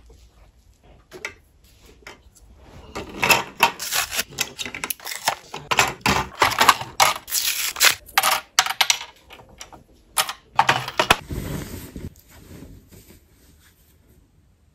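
Small plastic sewing supplies being handled: clear plastic bobbins and thread spools clicking and rattling against each other and a hard surface in irregular bursts, which die down after about eleven seconds.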